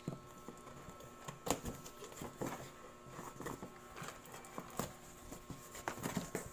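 Scissors snipping through packing tape on a cardboard box, then the cardboard flaps being pulled open and folded back: irregular small clicks, scrapes and rustles.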